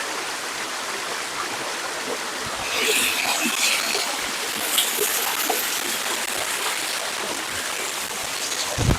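Forest waterfall and its stream rushing steadily over rocks, with a louder spell of splashing about three seconds in.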